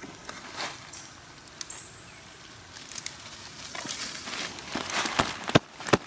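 Dry leaf litter crackling and rustling as long-tailed macaques move about on the forest floor. A high, pulsing call runs for about a second and a half near the start. A few sharp cracks come close to the end.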